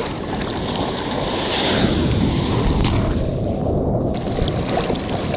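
Sea water washing and sloshing around a surfboard close to the microphone, with wind buffeting it. The sound goes briefly muffled near the middle, then opens up again.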